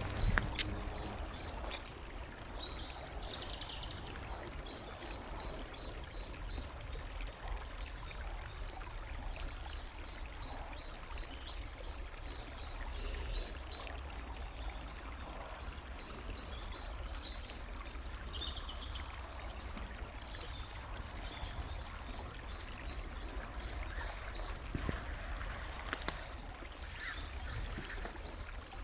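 A songbird repeating runs of short, high, evenly spaced notes, about three to four a second, each run lasting a few seconds with pauses between. Behind it is a steady hiss of running water.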